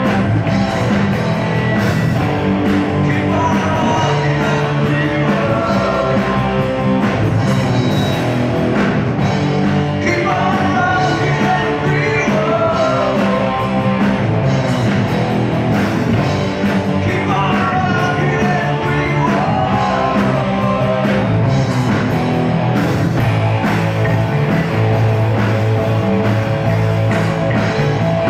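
Rock band playing: electric guitars, bass and drums, with a sung or lead-guitar melody gliding in pitch over the top.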